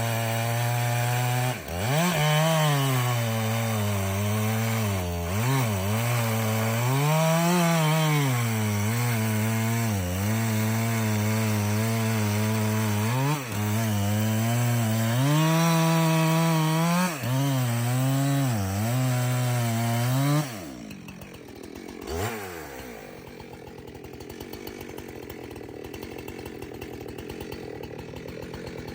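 Two-stroke chainsaw cutting through a log, its engine pitch sagging and recovering again and again as the chain loads up in the wood. About 20 seconds in it drops back to a quieter idle, with one short rev a couple of seconds later.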